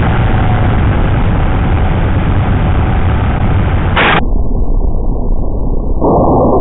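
Loud, steady rushing noise on an FPV quadcopter's onboard camera microphone, with a short sharp burst about four seconds in as the quad tips over onto the grass.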